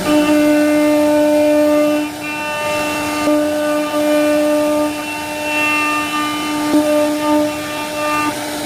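CNC wood-carving router spindle running at a steady whine while its bit cuts fluting into wood. The loudness dips briefly about two seconds in and wavers slightly as the cut goes on.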